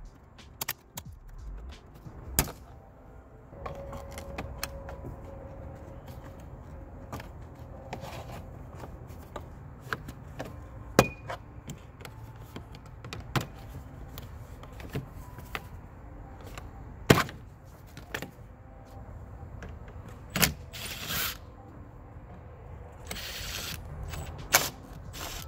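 Plastic dashboard trim on a minivan being pried loose: a string of clicks, snaps and knocks as the clips let go. Near the end a cordless driver runs briefly to back out screws.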